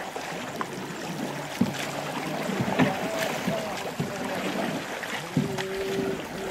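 Paddles dipping and pulling through shallow water as a crew strokes a large wooden dugout canoe off a beach: water splashing and sloshing, with sharper splashes from the strokes about once a second.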